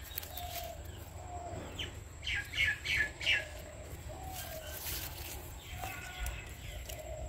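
Birds chirping, with a quick run of four loud chirps a little over two seconds in and shorter, lower calls repeating throughout, over a steady low rumble.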